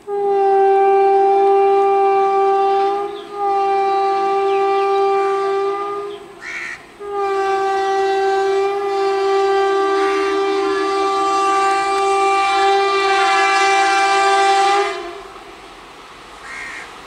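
Horn of an Indian Railways WAP-4 electric locomotive sounding in long blasts as the train approaches. There are two long blasts with short breaks about three and six and a half seconds in, then one long blast of about eight seconds in which a second, lower tone joins the first. After the horn stops near the end, a faint rumble of the train remains.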